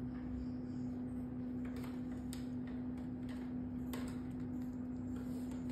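A domestic cat licking its raised leg while grooming: a handful of faint, short wet clicks of its tongue, over a steady low hum that is the loudest sound throughout.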